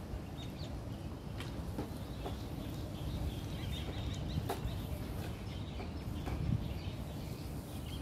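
Open-air ambience: a steady low rumble with a few faint, short bird chirps scattered through it and a couple of light clicks.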